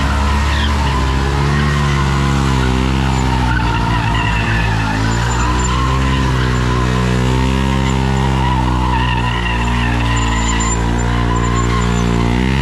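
Sport motorcycle engines held at high revs during burnouts and circle drifts, with the rear tyres spinning and skidding on asphalt. The engine note stays steady, wavering slightly.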